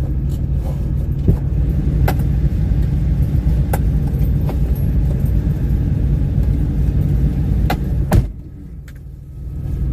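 Steady low rumble of a running vehicle, with scattered sharp clicks and rattles. The rumble drops away suddenly about eight seconds in and comes back near the end.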